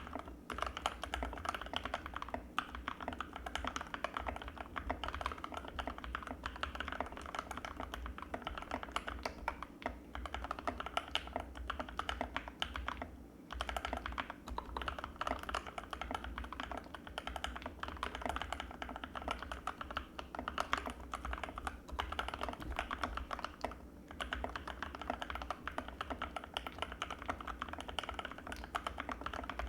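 Fast continuous typing on an Anne Pro 2 mechanical keyboard with Gateron Red linear switches, a dense stream of key clacks with brief pauses about 13 and 24 seconds in.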